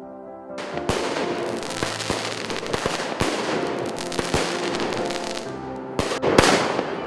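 Fireworks going off: a dense crackle of many small pops begins about half a second in, with sharper bangs scattered through it and louder bursts near the end.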